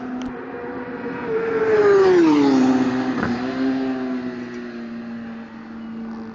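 A track-day vehicle passes close by at speed. Its engine note is loudest as it goes past and then drops sharply in pitch, fading to a lower, steadier drone. There is a single sharp click shortly after the pass.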